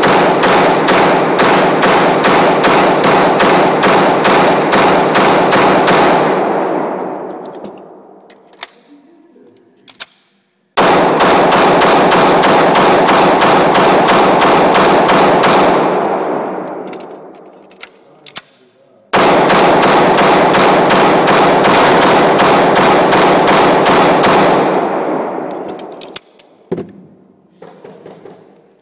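Springfield XD9 9mm pistol fired in three long strings of rapid shots, about three a second, with heavy echo from the indoor range. Each string ends in a long fading ringing tail, and a few faint clicks fall in the pauses between strings.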